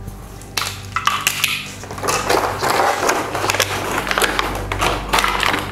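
Plastic toy tools clicking and clattering against a hard plastic packaging tray as they are handled. The clicks start scattered and turn into a dense run of rattling knocks after about two seconds, over a steady low hum.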